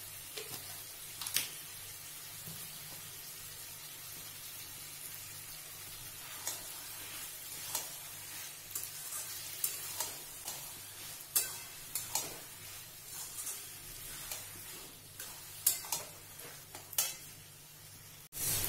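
Flat steel spatula scraping and knocking against a metal kadai as diced potatoes and greens are stirred, over a steady sizzle of frying. The scrapes are irregular, a single one early and many more from about six seconds in.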